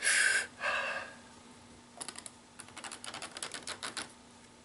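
A deep breath at the start, then about two seconds of quick light crackling clicks as the adhesive backing is peeled off an LED light strip.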